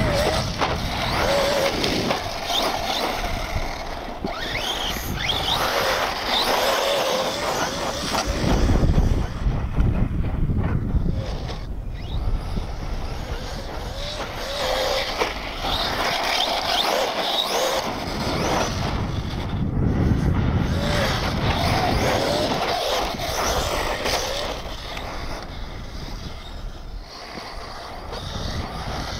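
Brushless electric Traxxas RC truck driving and sliding on desert dirt, its motor whine rising and falling again and again with the throttle, over a rumble of wind on the microphone.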